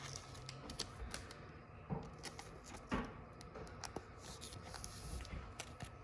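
Trading cards being handled: faint scattered clicks and taps, with a couple of slightly louder knocks about two and three seconds in.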